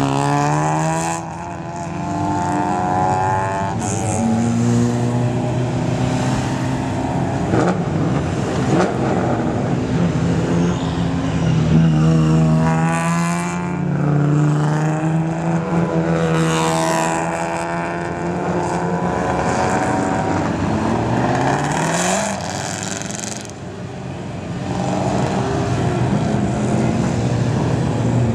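Several race car engines running and revving as the cars pull away one after another, each engine note rising as it accelerates and overlapping with the next car's.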